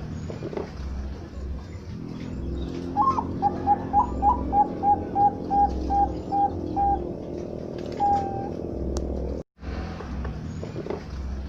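Zebra dove (Bangkok-strain perkutut) cooing: a few higher opening notes, then a rapid run of about a dozen short, even notes at roughly three a second, followed a second later by one longer note. A steady low hum runs beneath.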